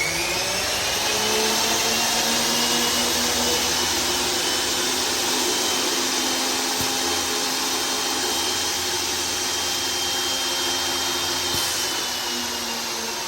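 Homemade two-headed cutting machine running with no speech over it. Its whine rises as it comes up to speed in the first second, holds steady, and begins to fall as it winds down near the end.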